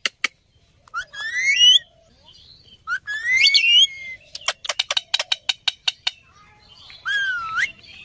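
Indian ringneck parakeets giving whistled calls that swoop up and down in pitch, three times, with a quick run of sharp clicks in the middle.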